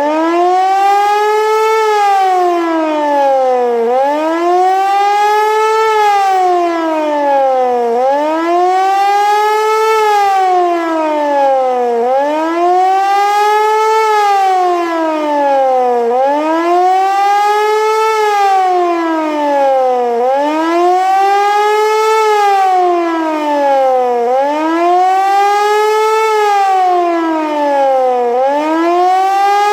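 Hörmann HLS 373 high-performance siren sounding a wailing tone that rises for about two seconds and falls for about two seconds, over and over without a break. This rising-and-falling wail is the German "Warnung" civil-defence signal, the alert telling the public to take cover and tune in to news broadcasts.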